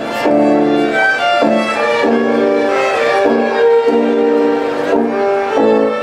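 A small ensemble of young violinists playing a tune together on violins, with notes held about half a second to a second each and short breaks between phrases.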